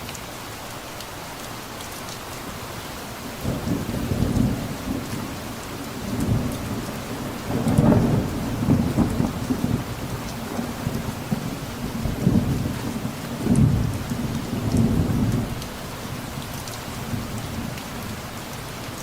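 Steady rainfall with a long roll of thunder: a low rumble that builds about three seconds in, swells in several pulses and dies away near the end, leaving the rain alone.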